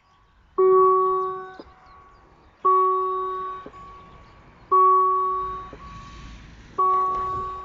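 Level-crossing warning bell ringing at an even, slow pace: four single dings about two seconds apart, each with a sharp start and fading out over about a second.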